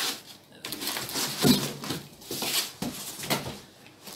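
Irregular rustling and scraping of packaging with a few dull knocks, as a part that is stuck in its box is worked loose by hand.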